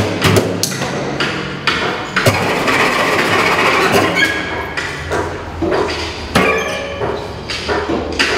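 Cello played with percussive extended techniques: the bow strikes and scrapes across the strings, giving irregular sharp knocks over a noisy, scratchy bowing sound, with a few high, squeaky pitched tones from about four seconds in.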